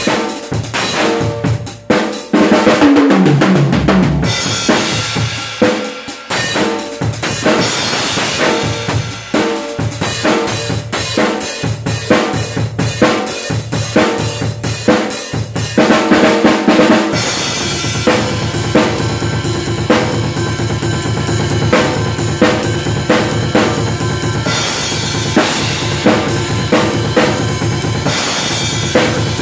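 Acoustic drum kit played hard with sticks: rapid snare and tom fills, bass drum and cymbal crashes. It becomes denser and steadier about halfway through.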